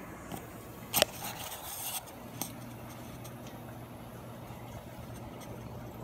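Steady low hum of running aquarium equipment, with one sharp knock about a second in followed by about a second of scraping rustle.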